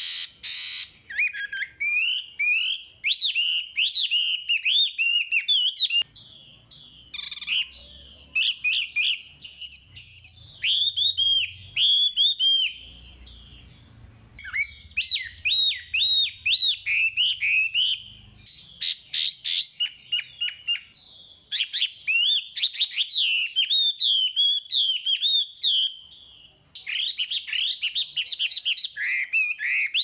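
Chinese hwamei (wambi) in full, continuous song (gacor): a loud, fast run of varied whistled notes that rise and fall, with brief pauses about halfway through and near the end.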